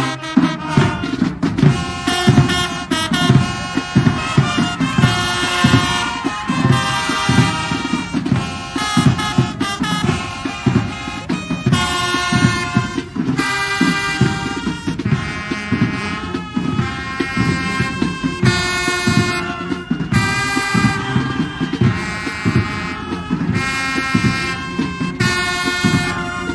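Marching band playing: brass, including sousaphones, sound held chords in phrases over a steady beat from the snare and tenor drumline.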